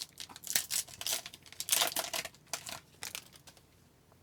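Hockey card pack wrapper being torn open and crinkled: a run of irregular rustles that stops about three and a half seconds in.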